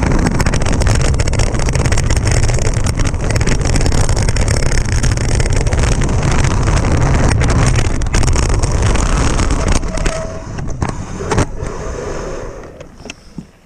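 Wind buffeting the camera microphone and mountain-bike tyres running fast over a dirt trail, with frequent knocks and rattles from bumps. About ten seconds in the noise drops away as the bike rolls onto smooth pavement and slows.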